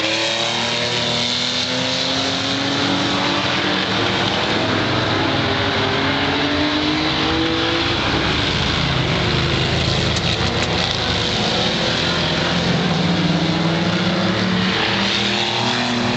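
Several super banger race cars' engines racing on the track at once, overlapping, with their pitch rising repeatedly as they accelerate.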